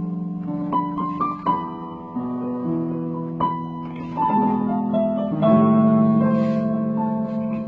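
Piano playing a slow piece of held chords, a new chord or note struck about every second, each ringing on under the next.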